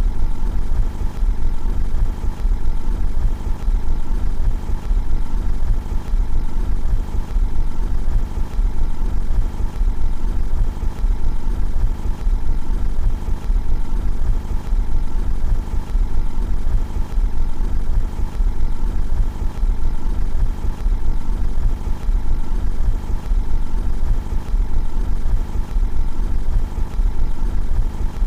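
Car engine idling steadily, heard from outside the car: an even low hum with no revving.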